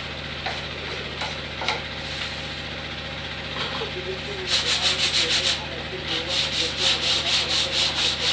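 Hand sanding of a wooden cupboard-door panel: a few light knocks in the first two seconds, then fast back-and-forth rubbing strokes, several a second, from about four and a half seconds in, with a short pause just before six seconds.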